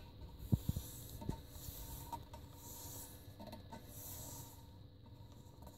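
Fingers rubbing and pressing a vinyl wheel-stripe decal down onto a motorcycle rim, a faint rubbing that comes and goes. There are a few dull knocks in the first second and a half.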